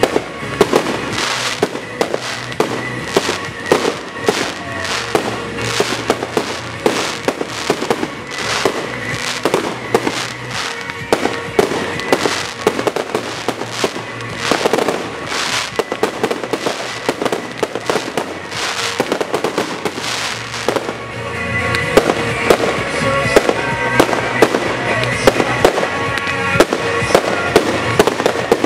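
Aerial fireworks display: shells bursting in a fast, irregular run of sharp bangs and crackles, with music playing underneath. From about two-thirds of the way in, the bursts come denser and almost continuous.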